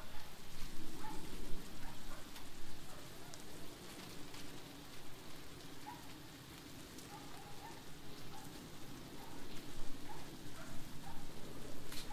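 Thin steaks and sliced onions and sweet peppers sizzling on a hot Blackstone flat-top griddle: a steady hiss with small scattered pops.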